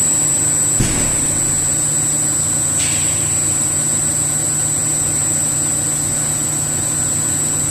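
ET-Compressors ET SL 7,5-8 rotary screw air compressor (7.5 kW) running steadily: an even low hum under a thin, high steady whine. A short knock comes about a second in and a brief hiss near three seconds.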